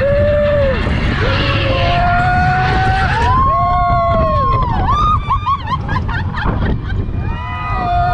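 Roller coaster in motion: a steady rushing rumble of wind and track, with riders whooping and screaming in long rising and falling cries.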